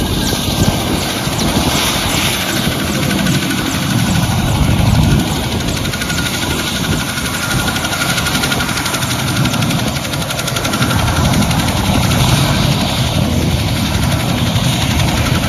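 Helicopter running close by, with a loud, steady rotor chop and engine noise.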